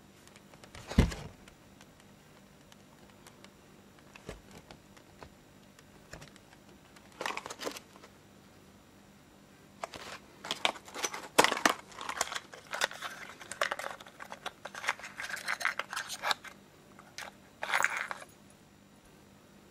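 Cardboard gun box and its cardboard insert being handled: a thump about a second in, then rustling, scraping and clicking of cardboard, thickest in the second half.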